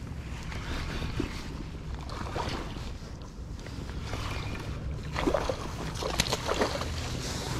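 Wind buffeting the microphone as a steady low rumble, with irregular rustling noises that grow louder about five seconds in.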